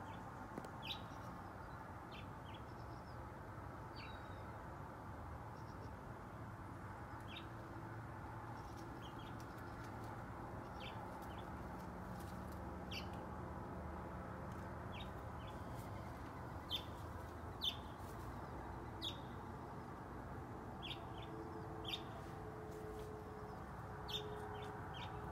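Birds chirping: short, high chirps every second or so over a steady low background rumble, with a lower repeated note joining near the end.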